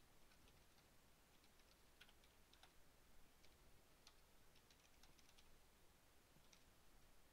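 Faint computer keyboard typing: scattered, irregular key clicks over near silence.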